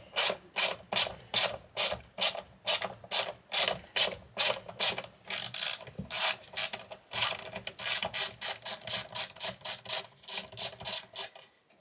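Ratchet wrench clicking in a quick, even rhythm, about three clicks a second, speeding up in the second half, as a fastener on the junction box is undone. The clicks stop shortly before the end.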